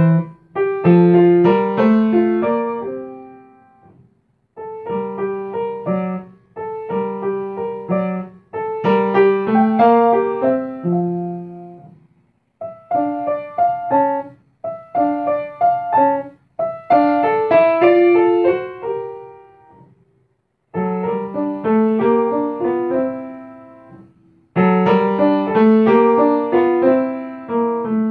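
Solo upright piano playing a piece in short phrases. Several phrases die away into a brief pause before the next one begins.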